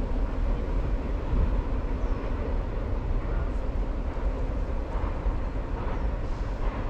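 Low, uneven rumble of a freight train that has passed and is moving away down the line.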